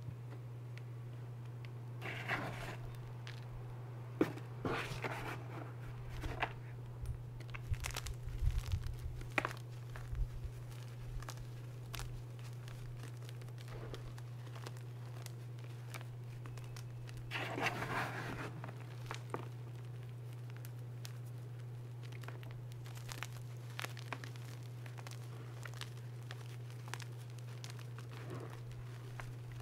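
Hands crushing and crumbling reformed gym chalk chunks in a tub of chalk powder: scattered crunches and crackles, busiest from about two to ten seconds in and again around eighteen seconds, over a steady low hum.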